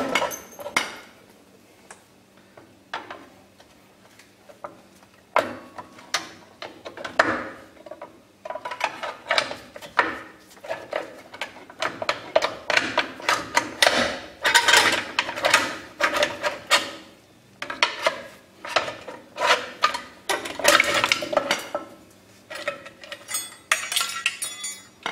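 Steel drum brake shoes, return springs and hold-down hardware on a 14-bolt axle's backing plate being levered and pried loose, giving irregular metallic clinks, scrapes and clatter. There are only a few clicks for the first five seconds or so, then dense, near-continuous clattering, with a brief metallic ringing near the end.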